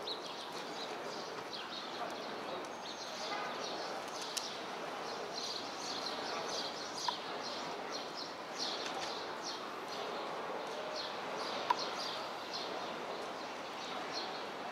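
Small birds chirping again and again over a steady hum of city street noise, with a couple of brief sharp ticks.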